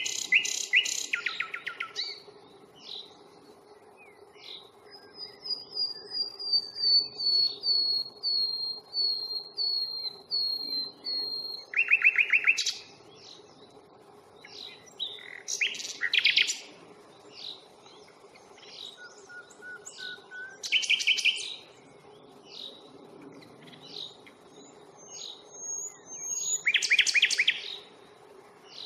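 Common nightingale singing: short phrases of fast, rattling notes broken by pauses, with a long run of repeated whistled notes about five seconds in. A faint steady low hum lies underneath.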